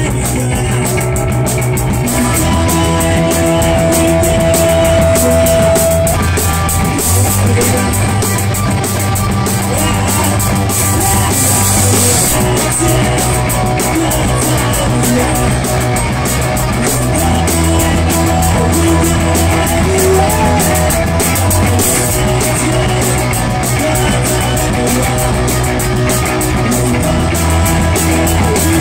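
Live rock band playing loud: electric bass, electric guitar and drum kit, with the bass line moving to a new note every few seconds under steady drumming.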